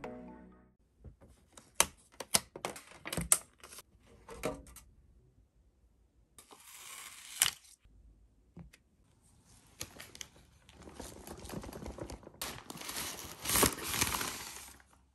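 Scattered light clicks and taps of objects being handled, then a plastic mailer bag rustling and crinkling, loudest just before the end.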